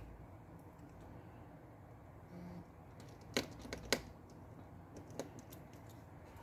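A few light, sharp clicks and taps of small tools and tiny parts handled on a work surface during a phone repair: a quick cluster of about four just past halfway, then one more a second later.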